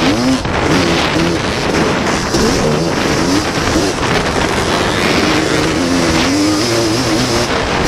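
Racing ATC three-wheeler engine heard from on board, revving up and down again and again as the rider works the throttle around the track.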